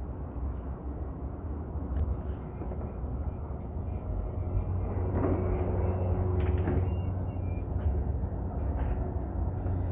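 Steady low rumble of outdoor city ambience, growing slightly louder, with a few clicks and a faint held tone about halfway through.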